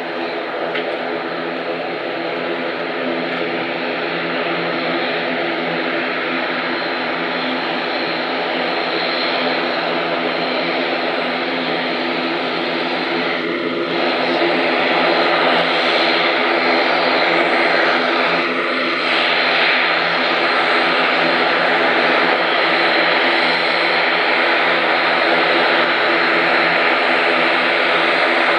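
The ATR 72-500's twin turboprop engines and six-bladed propellers running at taxi power: a steady drone of layered propeller tones over a hissing engine whine. It steps louder about halfway through as the aircraft comes closer.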